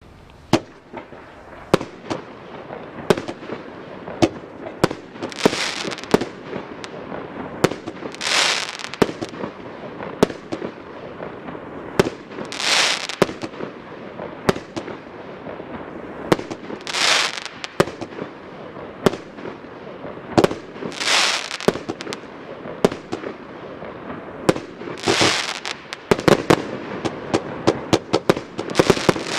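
A 36-shot fireworks cake firing: a quick, uneven string of sharp launch thumps and bangs, with a longer rushing burst about every four seconds.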